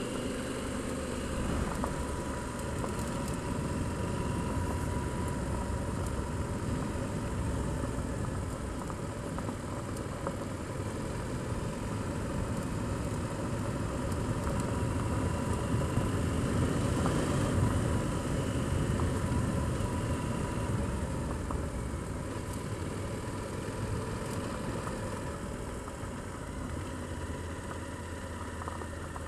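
Motorcycle engine running steadily at low speed while the bike rides over a loose gravel track, with tyre noise on the gravel. The sound grows louder a little past halfway, then eases off.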